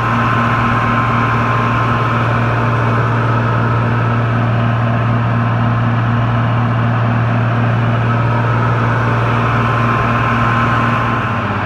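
Heavy diesel engine running steadily at a constant speed, an even low hum with no revving or breaks.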